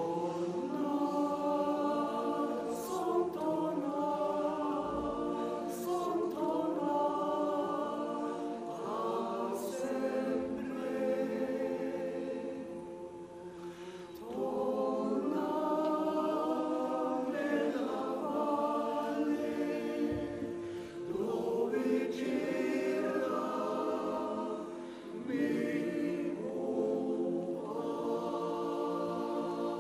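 Men's choir singing an Italian song unaccompanied in several-part harmony, in long held phrases with short breaks for breath about halfway through and twice near the end.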